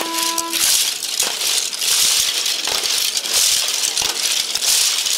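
Dense, continuous rattling and clacking of the animal bones tied to the Sos Corriolos masqueraders' shoulders, shaken in unison as they dance. A held horn note stops within the first second.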